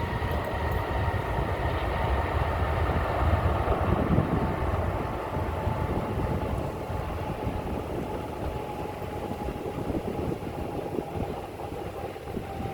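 Airbus A380's Rolls-Royce Trent 970 jet engines running at low thrust: a steady rumble that swells a few seconds in and then eases, under a high whine that slowly drops in pitch.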